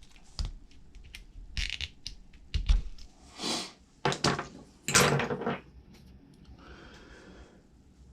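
Small metal and plastic RC truck parts being handled: scattered clicks and knocks with a couple of short scrapes, as a front wheel bearing is taken out and checked by hand.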